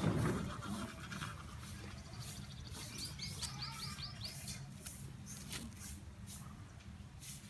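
A bird calling briefly: a quick trill of about seven short chirps about three seconds in, over a steady low hum. A short louder noise sounds at the very start.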